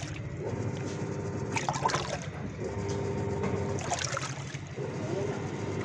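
Intex 6 kg top-loading washing machine in its wash cycle: the motor hums with a tone that comes and goes in stretches of about a second as the drum agitates, with water sloshing in the tub and a few short sharper noises. It runs normally, without the abnormal wash-side noise that the customer complained of.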